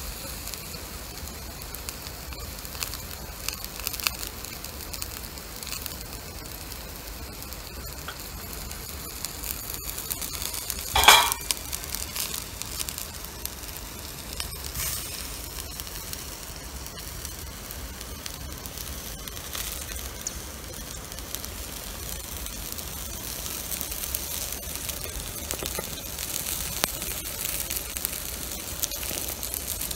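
Chicken-and-leek yakitori skewers sizzling on a wire grill over glowing wood embers, with scattered small crackles from the fire. About eleven seconds in there is one louder burst lasting about half a second.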